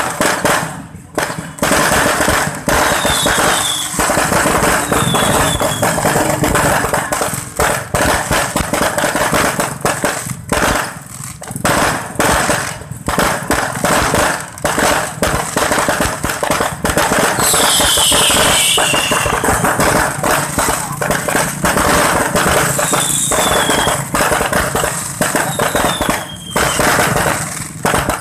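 Fireworks display: a dense, continuous barrage of crackling bangs and aerial shell bursts, with short falling whistles now and then.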